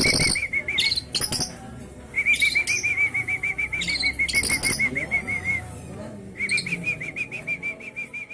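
Lovebird chattering in its rapid 'ngekek' trill: long runs of quickly repeated notes, about eight a second, coming in three stretches, with shorter, sharper high chirps between them.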